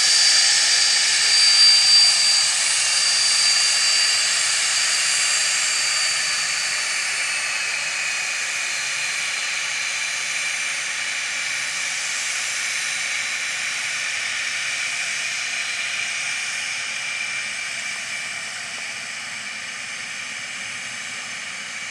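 Twin Pratt & Whitney Canada JT15D turbofans of a Cessna Citation I/SP whining and hissing at low taxi power. The sound is loudest at first and slowly fades as the jet turns side-on.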